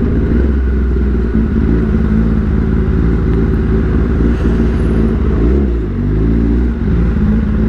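Kawasaki ZX-10RR's inline-four running at steady low revs through a short full-titanium SC Project exhaust. About five and a half seconds in, the revs dip briefly and then rise again.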